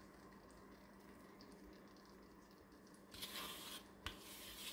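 Soft squishing and scraping of a silicone spatula working thick cake batter out of a mixing bowl into a cast iron skillet, mostly faint, with a louder scrape about three seconds in and a single sharp knock about a second later.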